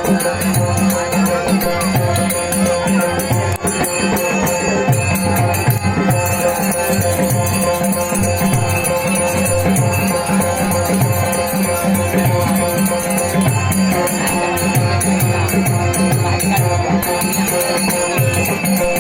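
Instrumental folk accompaniment for a Dashavatar Ganesh invocation: steady held tones over a quick, repeating drum rhythm and continuous jingling percussion, with no singing.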